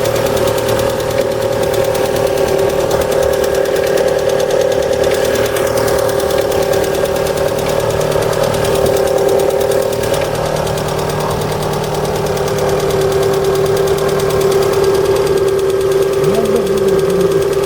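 Lada Priora 21126 1.6-litre 16-valve four-cylinder engine running with a fast, steady ticking knock. The tick seems to come from the top of the engine and is said to last until it warms to about 70 degrees, which the owners take for hydraulic valve lifters rather than pistons.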